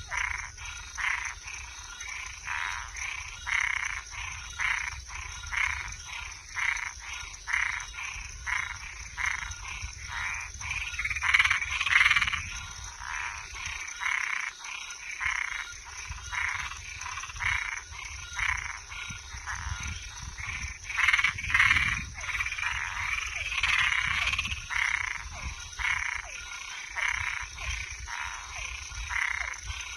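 Frogs and tree frogs calling: a short call repeated about twice a second, with louder overlapping calls from other frogs twice, over a steady high-pitched hum.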